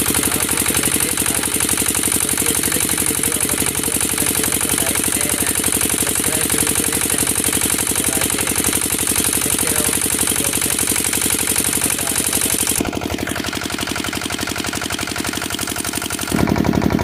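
Engine of a well-side water pump set running steadily, with a fast, even knocking beat.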